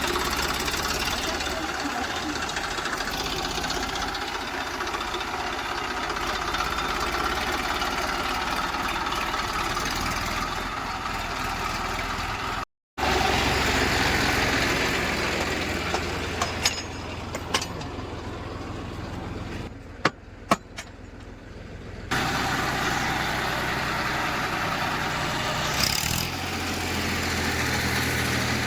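Diesel engine of heavy machinery running steadily, from the backhoe loader or the tractors at work. The sound cuts out briefly about 13 s in, drops quieter with a few sharp clicks around 16 to 21 s, and comes back at full level about 22 s in.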